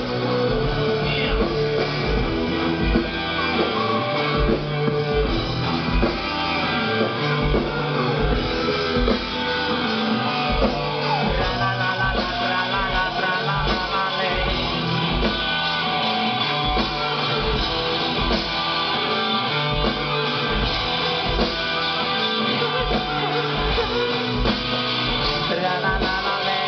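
A live rock band playing a song: electric guitars, bass and drum kit with a steady kick-drum beat, and a male singer, heard from the audience with a camera microphone.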